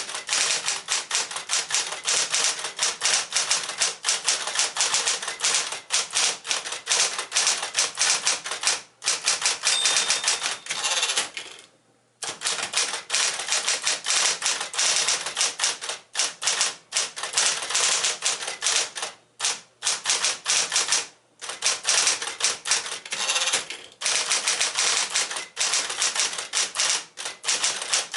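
1964 Sears Medalist Electric 12, a Smith-Corona 5LE electric portable typewriter, typing fast: a quick stream of powered keystroke clacks in long runs, broken by short pauses, the longest about halfway through.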